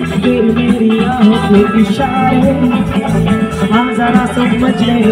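Live band playing loud amplified music through a PA: electric guitar and a singer on microphone over a steady beat.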